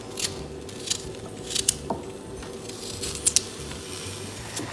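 Knife cutting ginger with pieces dropping into a steel mixer jar: several short, separate clicks and taps over a faint steady hum.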